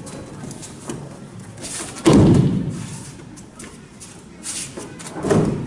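Two heavy thuds of a body landing on tatami mats in aikido break-falls, one about two seconds in and a second near the end, each ringing briefly in the hall. Fainter swishes and scuffs of clothing and feet on the mats come between them.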